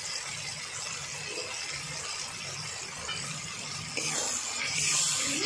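Spice masala frying down in oil in a pan: a steady sizzle that grows louder and brighter about four seconds in.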